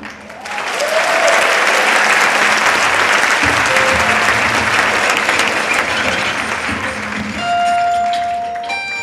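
Audience applauding, a dense clapping that fades out after about seven seconds as music with long held notes comes in near the end.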